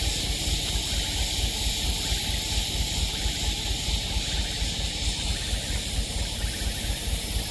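Mitsubishi Canter dump truck's diesel engine running at low revs with a rapid low throb as the truck crawls forward through deep mud ruts. A steady high hiss lies over it.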